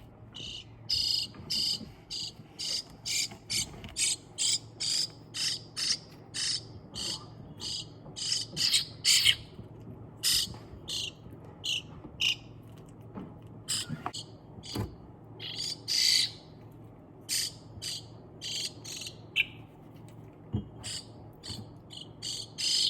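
Baby European starling giving repeated short, high, screechy begging calls, about two a second, sparser in the middle: the sound of a hand-reared nestling asking to be fed.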